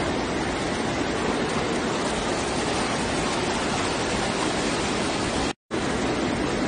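Muddy floodwater rushing down a street in a torrent: a steady, even rush of water that cuts out briefly about five and a half seconds in.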